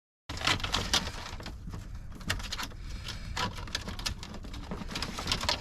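Hard parts of the jacuzzi heater being handled and worked loose: irregular clicks, knocks and rattles over a steady low rumble, starting suddenly just after the beginning.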